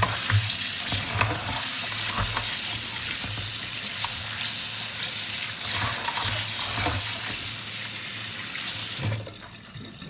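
Kitchen tap running onto chopped lamb tripe in a plastic colander in a stainless steel sink, a steady splashing hiss. The tap is shut off near the end, leaving water draining and dripping from the colander.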